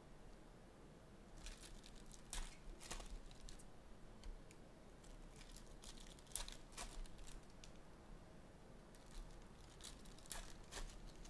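Faint crinkling and tearing of a foil trading-card pack wrapper as it is handled and opened. It comes in short spells of crackles about two seconds in, around six seconds, and again near the end.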